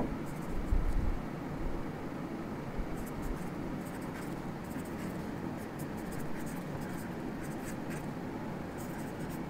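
Pen writing on paper: faint scratching of the nib in short strokes as a word is written out.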